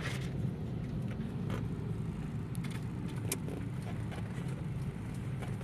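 Steady low hum of a car's engine heard from inside the cabin, with a few faint clicks.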